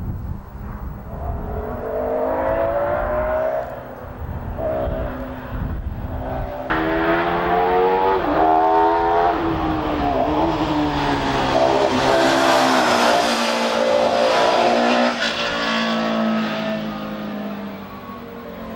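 Jiotto Caspita's Judd V10 racing engine revving hard as the car drives past on a circuit, its pitch rising and falling as it accelerates and changes gear, over a few passes with abrupt cuts between them.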